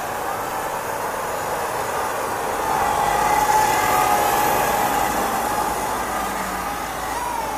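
Micro FPV racing quadcopter's brushless motors and propellers whining in flight, the pitch wavering up and down, over a steady hiss of rushing air.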